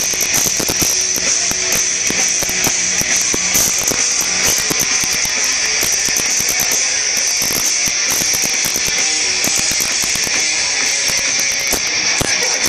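Live metalcore band playing loud, with dense, rapid drum hits driving through the music.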